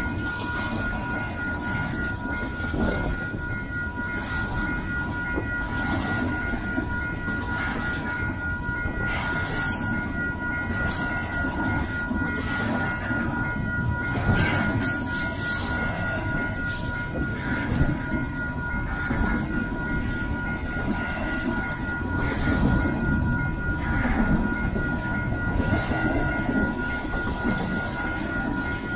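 Double-stack intermodal container well cars rolling past: a steady rumble of wheels on rail with irregular clanks and clatter, and a steady high whine over it.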